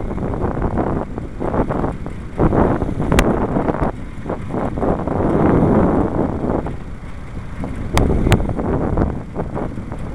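Wind buffeting the microphone of a moving camera: a loud, uneven rumble that swells and fades. Three sharp clicks cut through it, one about three seconds in and two close together about eight seconds in.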